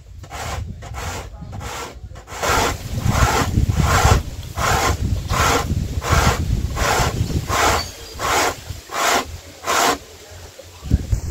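Dry corn cob rasped up and down a homemade punched-tin grater on a wooden board, grating the kernels into coarse corn meal. The rhythmic scraping runs at about two strokes a second, lighter and quicker at first, with a short lull near the end.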